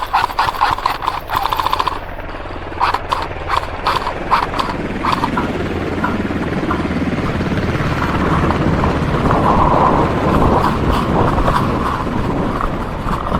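Airsoft electric gun (AEG) firing a rapid full-auto burst, followed by scattered sharp snaps of further airsoft shots. A steady rushing noise takes over and swells through the second half.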